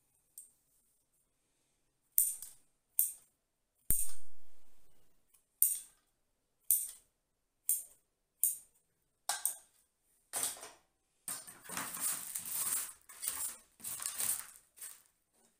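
Bonsai scissors snipping through the roots of a Chinese elm seedling: about eight separate sharp cuts roughly a second apart. Near the end come several seconds of denser rustling and scraping.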